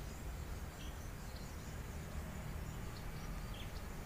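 Outdoor ambience: a steady low rumble with a few faint, short high-pitched chirps scattered through it.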